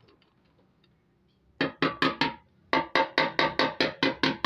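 Hammer tapping a metal rod set through the filler neck of a Honda CD 70 fuel tank, pushing a dent out from inside. Sharp ringing taps at about five a second start about a second and a half in: four, a short pause, then about ten more.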